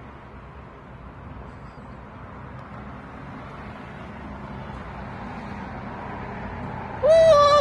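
Steady low background hiss, then about seven seconds in a single loud call from a pet parrot: one clear pitched note that rises at its start and then holds for about half a second.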